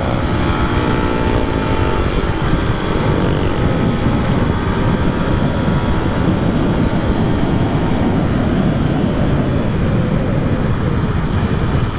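Yamaha Sniper motorcycle engine running while being ridden, its pitch plainly heard for the first couple of seconds before a steady rush of wind on the microphone covers most of it.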